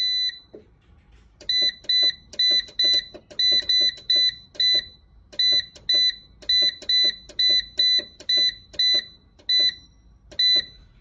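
Solar inverter's keypad buzzer giving a short, high beep with each button press, each with a soft key click: about twenty quick presses at two to three a second, with a pause of about a second midway. A long beep from the enter key being held cuts off at the very start.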